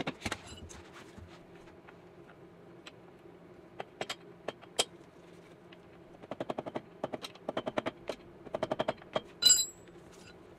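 A few light taps of a soft mallet on the rear axle end at the start, then scattered metal clicks. From about the middle come short runs of quick clicking as a wrench is worked on the axle, with one sharp ringing metallic clink near the end.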